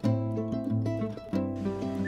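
Background instrumental music of plucked-string notes.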